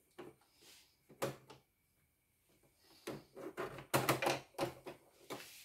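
Plastic clicks and knocks of hands working at the needle plate and bobbin area of a home embroidery machine, which is not running: a few scattered clicks at first, then a quick run of them in the second half.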